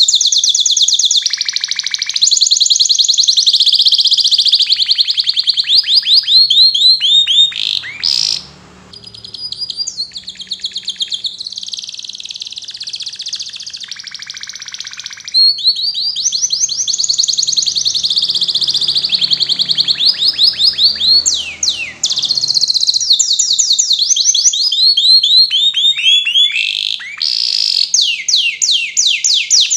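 Domestic canary singing a long, loud, high-pitched song of very fast trills and rolling repeated notes. It breaks off briefly about eight seconds in, sings more softly for several seconds, then resumes at full strength.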